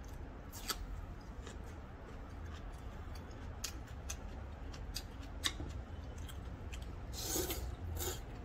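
Close-miked eating: crisp chewing and wet mouth clicks scattered throughout. Near the end come two short loud slurps of ramyeon noodles.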